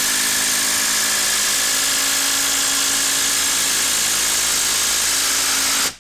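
Ryobi 18-volt brushless quarter-inch impact driver running steadily under load, driving a TimberLok screw into a wooden log; it stops suddenly near the end as the screw is driven home.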